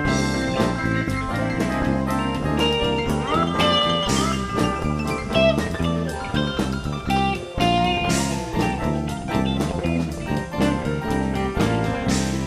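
Live rock band playing an instrumental jam: electric guitar lead over electric bass and drum kit, with a cymbal crash about every four seconds.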